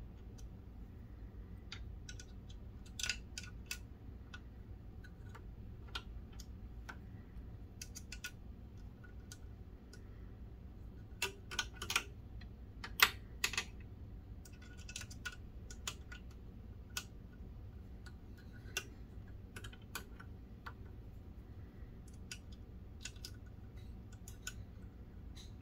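Scattered light clicks and taps of hands fitting hydraulic hoses onto the fittings of a scale-model excavator, with a cluster of sharper clicks around the middle, over a low steady hum.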